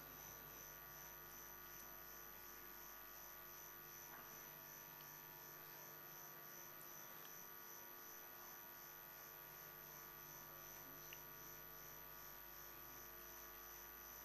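Near silence: a faint, steady electrical hum with room tone.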